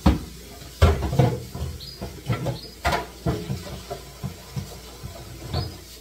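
Refrigerator drawers and parts being handled during cleaning: a string of sharp knocks and clatters as they are moved and set down, the loudest at the start and just under a second in.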